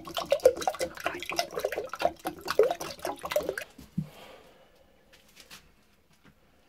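Water pouring in a stream from the bung hole of a small oak barrel into a glass measuring jug, splashing as the barrel is drained of its soak water. The pouring stops about three and a half seconds in, followed by a single low knock.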